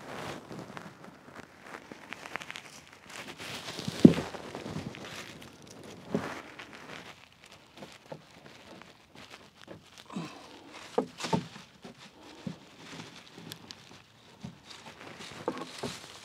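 Scattered rustling, scraping and light knocks of hands working along a plywood footing form, with one sharper knock about four seconds in and a few quick clicks near the middle.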